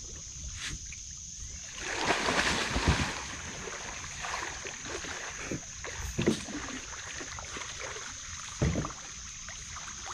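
River water splashing and lapping at a muddy bank as a man and a dog swim out from shore, with a louder run of splashing about two seconds in and a few sharper splashes later.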